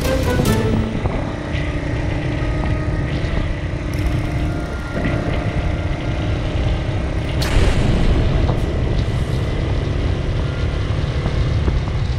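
Suzuki ST250 E-type's single-cylinder engine running at a steady cruise on the road, under heavy low wind rush on the microphone. A short burst of noise comes a little past halfway.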